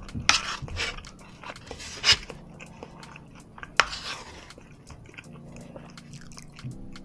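Wet chewing and crunching of food close to the microphone, with a few sharp louder bursts about a third of a second, two seconds and four seconds in.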